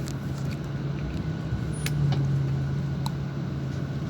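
Mercedes-Benz O-500RSD coach's diesel engine running with a steady low hum, swelling slightly about two seconds in, with a few faint ticks.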